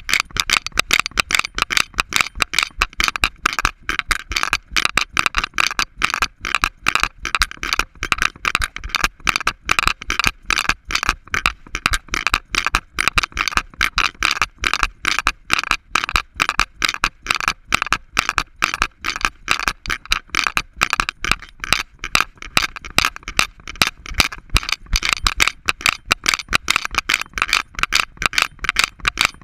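Harness-mounted GoPro rattling in its mount as an Alaskan Malamute walks: a rapid, steady run of clicks, several a second.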